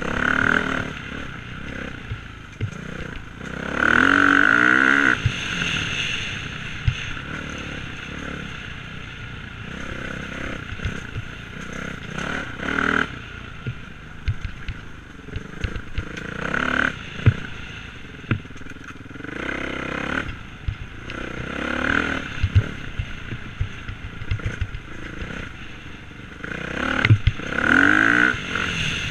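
Dirt bike engine revving up and dropping back again and again as the throttle is worked, in about seven swells, the longest about four seconds in. Frequent sharp knocks and clatter come through over the engine.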